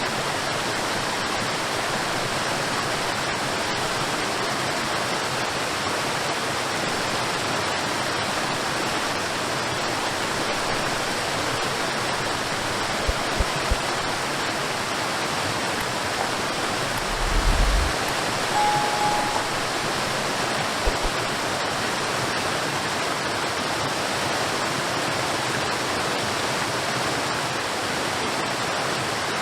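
Cordless stick vacuum running steadily, an even rushing noise of motor and airflow. A few low bumps come in the middle and a short single-pitched beep about two-thirds of the way through.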